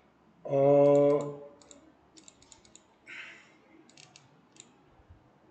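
Light clicking of a computer mouse and keyboard, a string of short sharp clicks through the whole stretch. About half a second in, a man makes a loud, drawn-out vocal sound at one steady pitch for about a second.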